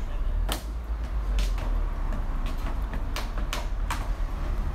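A cloth wiping a car windshield by hand makes short swishes on the glass, about six strokes at an uneven pace. A steady low hum runs underneath.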